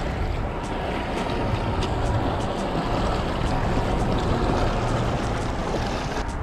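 Wind rumbling on the microphone over small waves lapping and splashing against a rocky shoreline, with faint scattered ticks.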